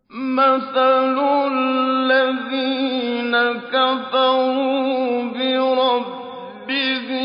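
A man's voice chanting Qur'anic recitation in long, melodic held notes with wavering ornaments. It comes in at the start after a silence, and there is a brief dip for breath near the end before the next phrase.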